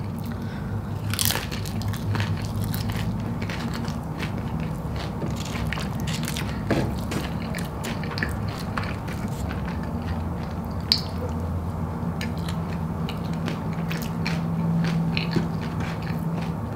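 Close-up eating sounds of loaded tortilla-chip nachos: chewing and biting, with many short crackles and crunches as fingers pick chips out of a foil-lined container. A low steady hum runs underneath.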